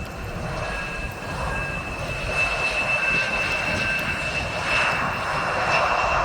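Jet airliner engines with a steady high whine over a rushing noise that grows louder partway through.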